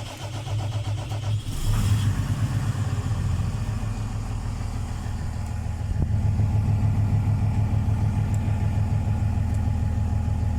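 Caterpillar diesel engine of a Valdor 8000 diamond core drilling rig running on its first start. It picks up and settles into a steady run about two seconds in, then steps up a little louder about six seconds in, running very smoothly.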